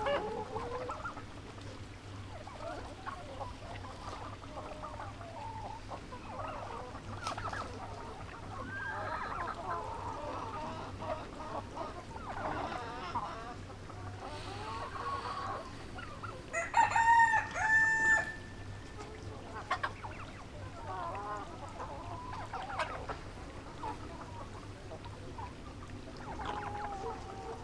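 Domestic chickens clucking in scattered short calls, and a rooster crowing once, about seventeen seconds in, for about a second and a half.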